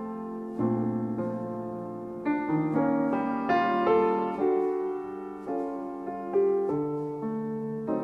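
Solo piano music: notes and chords struck and left to ring and die away.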